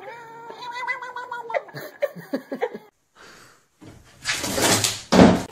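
A grey cat gives one long, drawn-out meow while being stroked, followed by a few short, choppy cat calls. After a short gap, two loud noisy bursts with no clear pitch come near the end.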